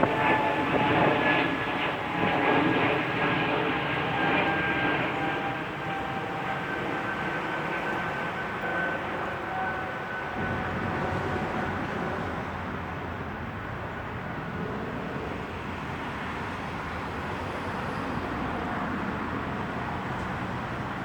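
A distant engine drone, slowly falling in pitch and fading over the first half.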